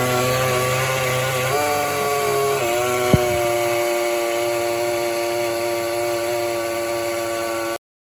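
Toshiba drum-type washing machine running with a loud, abnormal buzzing hum; its pitch steps up about a second and a half in and slides down near three seconds, with a single sharp click just after, and it cuts off near the end. A noise like this can be the warning sign of Toshiba's EP3 error, a fault near the drain pump.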